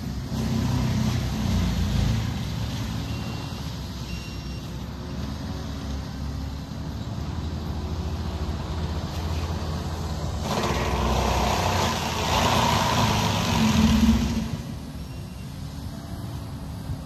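A compact track loader fitted with a Denis Cimaf forestry mulcher head works at a distance, its engine running steadily. About two-thirds of the way through, a louder, harsher rushing sound lasts for about four seconds.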